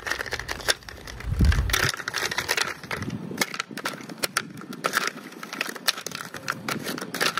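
Ice cubes being cracked loose from an ice cube tray and picked out by hand: a run of irregular sharp cracks, crunches and clinks, with a brief low rumble about a second and a half in.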